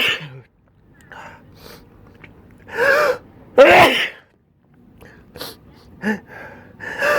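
A person sneezing during an allergy sneezing fit: a voiced "ah" intake about three seconds in, then a loud "choo" sneeze. Short gasping breaths come between the sneezes, and the next sneeze's intake starts near the end.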